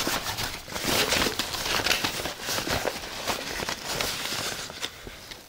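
Hands rummaging through a nylon backpack pocket: irregular rustling and scraping of the bag's fabric and the things inside it, with close handling noise on the microphone.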